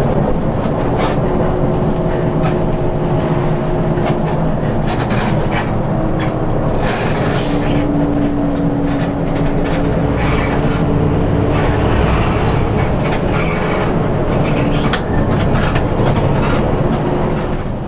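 Inside a moving intercity bus: steady engine and road rumble with many short rattles and clicks from the cabin fittings, and an engine drone that shifts in pitch a few times.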